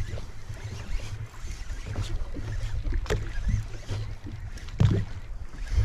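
Sounds aboard a fishing boat at sea: a steady low rumble, with a few short knocks or splashes. The loudest comes about five seconds in.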